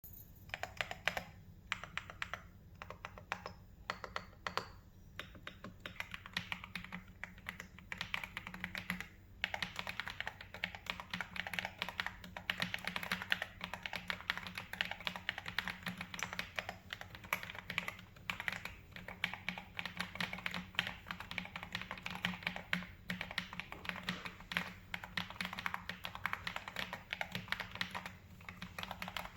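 AULA F108 Pro mechanical keyboard being typed on. Scattered single keystrokes at first, then fast continuous typing from about nine seconds in.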